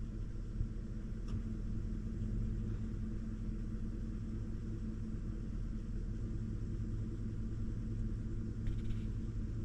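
Steady low rumble, with a faint tick about a second in and a short crackle near the end.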